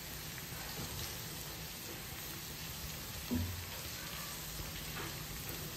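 Minced garlic sizzling steadily in a little cooking oil in a nonstick wok while it is stirred with a silicone spatula, being fried until light golden. A brief low thump comes a little past halfway.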